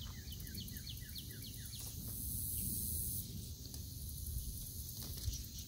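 Outdoor field ambience: a bird sings a quick run of repeated downslurred notes for about the first two seconds, over a steady high insect hiss and a low wind rumble.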